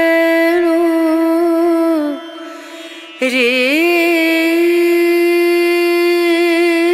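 Background music in an Indian classical style: a single reedy wind instrument holds long notes with sliding ornaments. It fades briefly about two seconds in and comes back with an upward slide.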